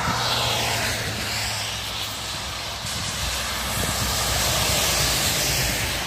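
Semi-trailer truck driving past on a wet motorway: engine drone and tyre hiss that swell and then fall away as it goes by, with more traffic behind it.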